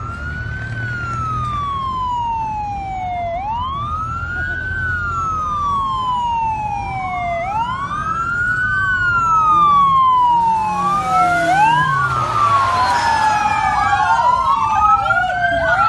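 Malaysian police car siren wailing: each cycle sweeps up quickly and falls away slowly, repeating about every four seconds. About two thirds of the way through, a rush of noise rises and fades. Near the end a second siren with quicker sweeps overlaps the first.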